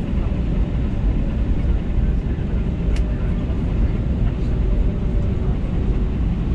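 Airbus A320 jet engines running steadily at taxi power, heard from inside the cabin as a dense low rumble while the airliner turns onto the runway. A single sharp click sounds about three seconds in.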